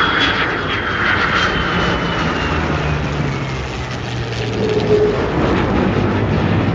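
F-22 Raptor's twin Pratt & Whitney F119 turbofans flying by with a loud, steady rushing jet noise. A thin high whine slowly falls in pitch over the first three seconds.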